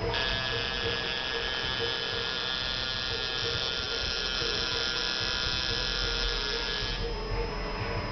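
Coil tattoo machine buzzing steadily as the needle works into skin; the higher part of the buzz drops away about seven seconds in.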